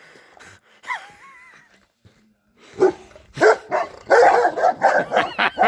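A dog barking: a single falling whine about a second in, then a quick run of barks in the second half.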